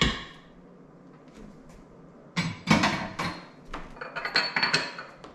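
Wooden spoon knocking against an Instant Pot's stainless steel inner pot: a few sharp knocks a little over two seconds in, then lighter clinks as the spoon is tapped off and set down.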